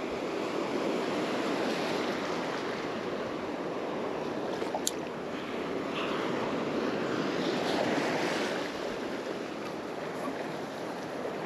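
Shallow surf washing and breaking around the wader, a steady rushing hiss that swells a little about two-thirds of the way through, with wind buffeting the microphone. A single sharp click about halfway in.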